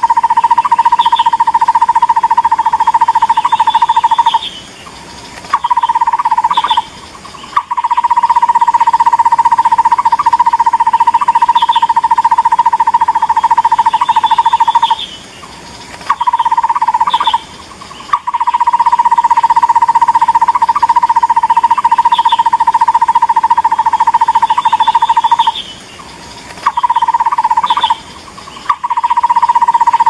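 Takur bukit barbet calling: long, fast runs of the same note at one pitch, several seconds each, broken by short pauses, with a few higher notes now and then. The sequence repeats as a loop about every ten seconds, a call recording played to lure the bird.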